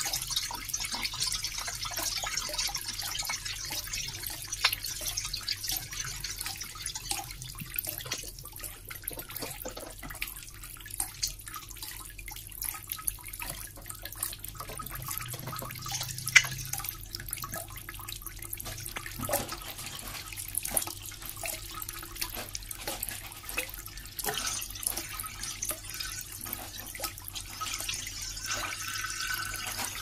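Water running and splashing steadily, with many small drips and plinks scattered through it. One sharper, louder drop lands about halfway through.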